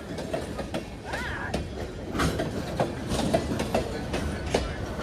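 Freight cars of a CSX manifest train rolling past: a steady rumble of wheels on rail with irregular clicks and clanks over the joints.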